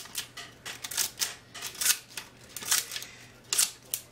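Multi-bladed shredder scissors snipping through a floppy disk's thin magnetic disc: a quick, uneven series of sharp snips, about three a second.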